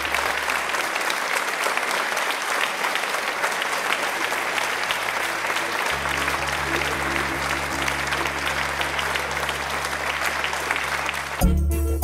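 Audience applauding, a dense steady clatter of clapping over a low held musical drone. Near the end, band music with a strong beat starts up loudly.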